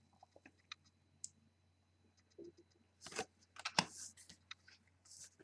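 Faint, scattered clicks and light rustling of trading cards being handled and shuffled, with the loudest tap a little under four seconds in.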